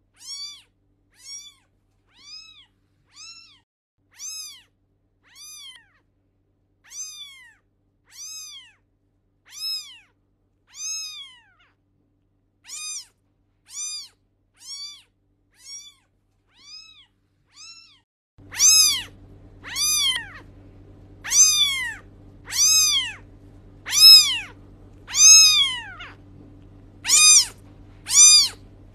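A cat meowing over and over, about one short meow a second, each rising then falling in pitch. The meows get louder about two-thirds of the way in, when a low steady hum also comes in.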